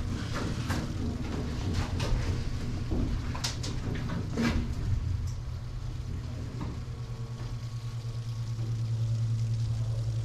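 A steady low rumble, with a few sharp knocks and clicks in the first half.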